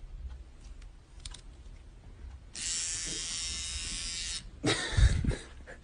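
Handheld electric hair trimmer buzzing steadily for about two seconds while pressed into a sleeping person's hair. It is followed by a few short thumps and rustles near the end.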